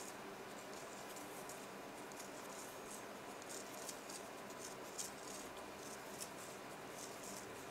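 Faint rustling and irregular light scratching of yarn sliding over fingers and a metal circular knitting needle as stitches are cast on by hand in a long-tail cast on, over a steady hiss.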